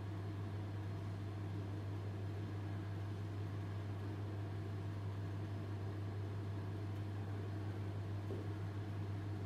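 Steady low hum over a faint even hiss, unchanging throughout: room tone with a constant electrical or machine hum.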